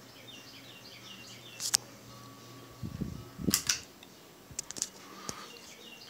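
Three-blade hugger ceiling fan running with a faint steady hum. A run of high, falling chirps comes in the first second and a half. A sharp click sounds a little under two seconds in, then low knocks and louder clicks come between about three and five seconds in.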